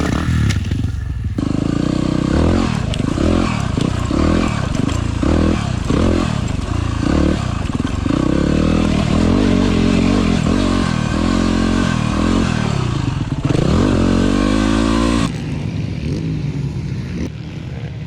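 Motorcycle engine being ridden hard, its revs rising and falling over and over as the throttle is worked and the gears change. About three seconds before the end the revs drop away and it goes quieter.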